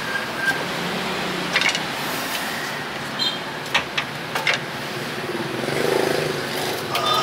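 Steady street traffic noise with a few sharp knocks of a meat cleaver on a wooden chopping block, mostly between about one and a half and four and a half seconds in. A passing engine swells and fades about six seconds in.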